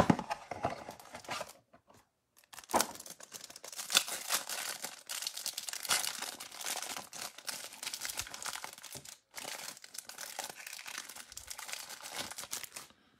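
A sharp snap at the start, then a clear plastic cellophane wrapper crinkling and tearing as it is peeled off a stack of trading cards, from a few seconds in until near the end.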